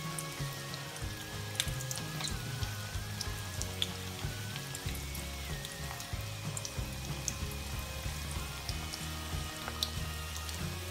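Batter-coated chicken pieces frying in hot sunflower oil in a kadai: a steady sizzle with frequent irregular crackles and pops. Soft background music with held notes plays underneath.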